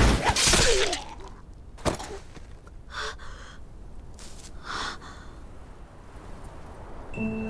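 A person's loud, pained gasp in the first second, followed by a few short strained breaths. Soft tinkling keyboard music notes begin near the end.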